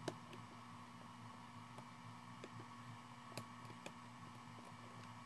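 Faint, sparse clicks of a pry tool popping the flex-cable connectors off an iPhone 7's logic board, about five of them, the sharpest right at the start, over a steady low hum.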